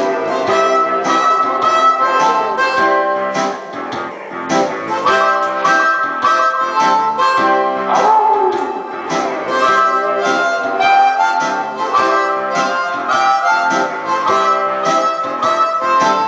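Blues harmonica played cupped against a handheld microphone, bending some notes, over a steady rhythmic backing that includes guitar.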